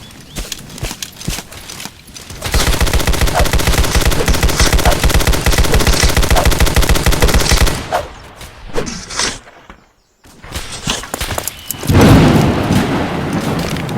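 Gunfight sound effects. Scattered gunshots give way to about five seconds of continuous rapid automatic fire, then a few more single shots. After a short silence, a loud low rumbling boom comes near the end.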